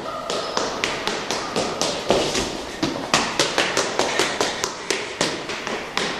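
Quick footsteps running up stone stairs, a rapid run of sharp steps at about five a second.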